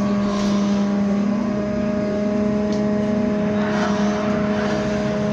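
Cabin sound of a MAZ-203T70 trolleybus running at a steady speed: the electric traction drive hums on several held, unchanging tones over a constant rush of road and tyre noise.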